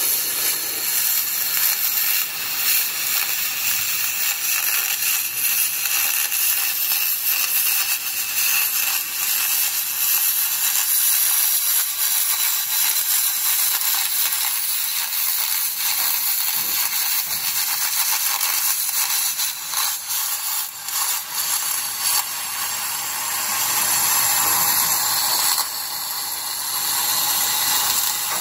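Electric welding arc running continuously, a steady high hiss full of fine rapid crackles, with a brief unsteady stretch about twenty seconds in.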